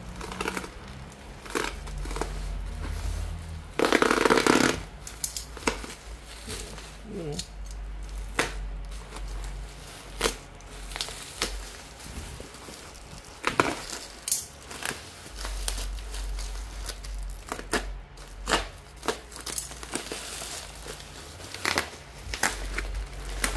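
Plastic bubble-wrap packaging being cut with a box cutter and torn open by hand: crinkling plastic and scattered sharp clicks and rustles, with one loud rip about four seconds in.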